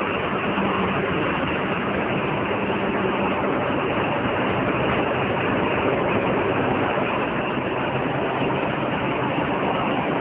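A vehicle engine idling steadily under a constant noise, with a low hum that weakens a few seconds in.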